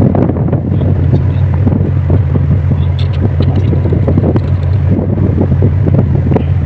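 Wind buffeting the microphone: a loud, steady rumble, with a few faint clicks about three seconds in.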